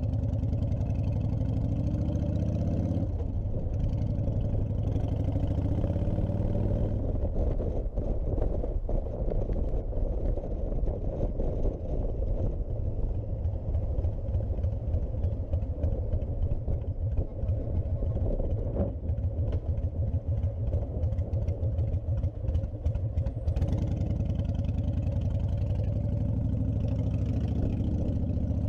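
Honda VTX1300C's liquid-cooled V-twin engine pulling up through the gears, its pitch rising and dropping back at a shift about three seconds in, then rising again. For most of the rest it runs at a lower, uneven note, then climbs in pitch once more near the end.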